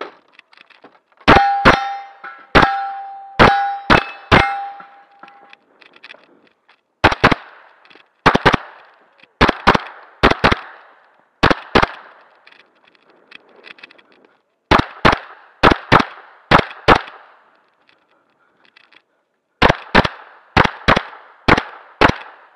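Rapid fire from a 9mm pistol-caliber carbine during a timed practical-shooting stage. In the first few seconds six shots each set a steel target ringing. After that the shots come mostly in quick pairs, double taps on paper targets, in bursts separated by pauses of a second or two while the shooter moves between positions.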